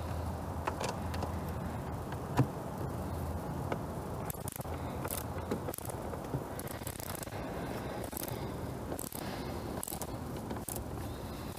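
Hand ratchet clicking in short runs of strokes, from about five seconds in, as a bolt on the air-filter housing is undone. A single knock of the tool about two seconds in.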